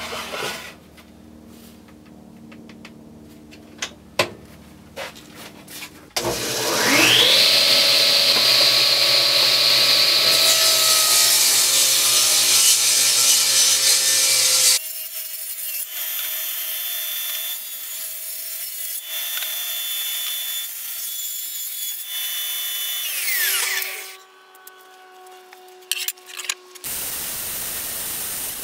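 Old Sears Craftsman table saw starting with a whine that climbs quickly in pitch, then running loud while a board is ripped through the blade. Later the saw runs more steadily and winds down with a falling whine, followed by a few knocks.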